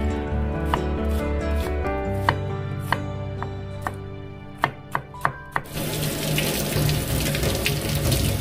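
A chef's knife chopping diced onion on a wooden cutting board, a series of separate sharp taps, over background music. About six seconds in, the tapping stops and tap water starts running over the chopped onion in a metal mesh strainer, a steady rush, to rinse out the onion's sharpness.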